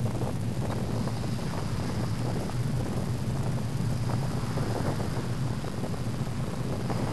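Wind buffeting a bicycle-mounted camera's microphone while riding, over a steady low rumble from the bike rolling on the road.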